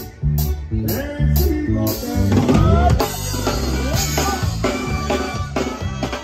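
A live band playing with a drum kit keeping a steady beat under bass, keyboard and horns.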